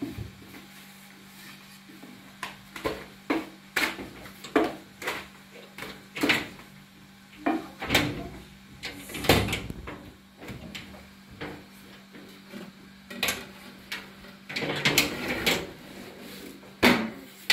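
Long thin wooden rolling pin knocking and rolling against a round wooden board as flatbread dough is rolled out: a run of irregular wooden clacks and taps over a steady low hum.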